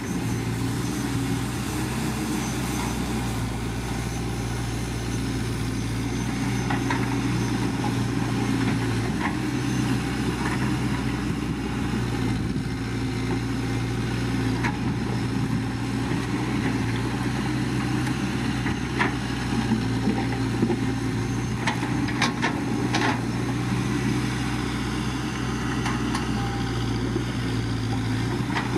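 CAT 312C excavator's diesel engine running steadily, with scattered sharp metallic clanks, mostly in the second half.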